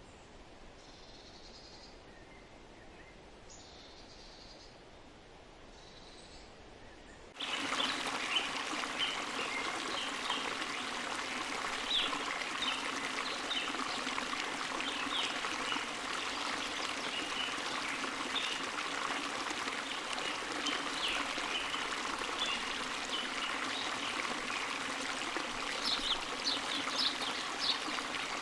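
Faint outdoor ambience with a few faint high chirps, then, about seven seconds in, running water starts abruptly: a steady trickle with many small irregular splashes.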